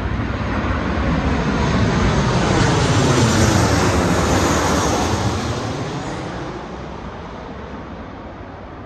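An airliner passing low overhead. Its engine noise rises to a peak about three to four seconds in, then fades away as it moves off.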